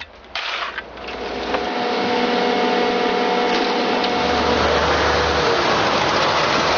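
Concrete mixer truck discharging wet concrete down its chute: a steady rushing noise of the pour and the running truck, building from about a second in.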